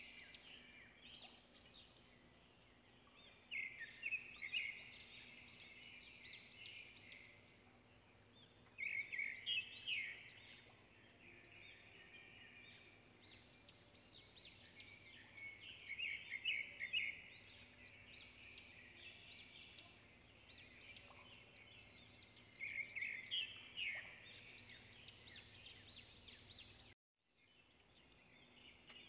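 Chicken pieces shallow-frying in hot oil in a nonstick pan: the oil sizzles and crackles throughout, with louder clusters of spitting every few seconds. It cuts out briefly near the end, then sizzling resumes.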